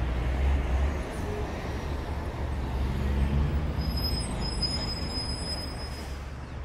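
Road traffic: motorcycles and cars passing on a wide road, a steady low rumble of engines and tyres that swells twice as vehicles go by and fades near the end.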